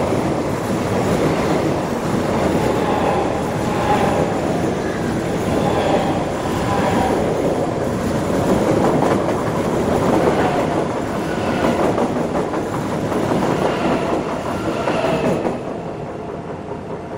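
ICE high-speed train passing close on a steel truss bridge: a steady rush of wheels on rail, with faint tones swelling and fading every second or two. The noise drops away suddenly shortly before the end as the last coach clears.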